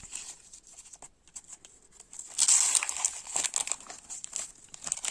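A Panini sticker packet's wrapper being torn open and crinkled by hand, in scattered crackles with a louder stretch of crinkling about two and a half seconds in.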